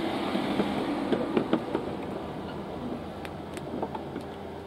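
Steady background rumble that slowly fades, with a few light clicks.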